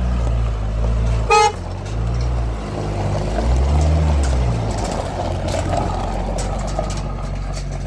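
Pickup truck engine running at low speed as it manoeuvres, its pitch shifting, with one short horn toot about a second and a half in.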